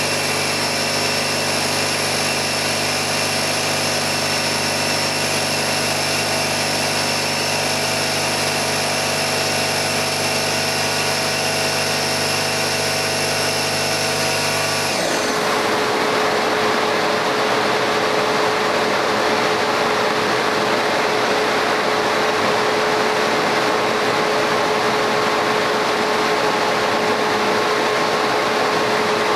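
Laser cutter running steadily, a machine sound with several fixed hum tones. About halfway through it changes abruptly to an even hiss with one steady tone.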